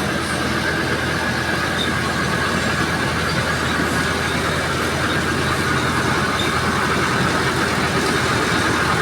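Engines of heavy road-paving machinery running steadily at a low, even pace.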